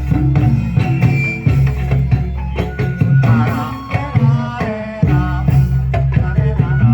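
Band music with a steady drum beat and bass under a wavering melodic line.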